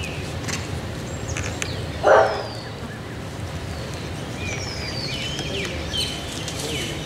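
Small birds calling with thin, high, falling whistles over a steady low background noise. About two seconds in comes a single short harsh call, the loudest sound.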